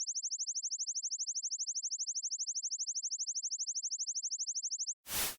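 A rapid, even train of short rising electronic chirps, about thirteen a second, played as the LiveProof app's audible sound signal during the liveness check. They stop about five seconds in, and a burst of loud hiss starts near the end.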